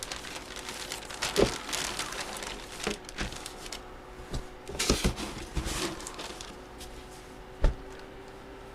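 Trading cards and their plastic packaging being handled: crinkling and rustling with scattered light clicks, and one sharp tap near the end.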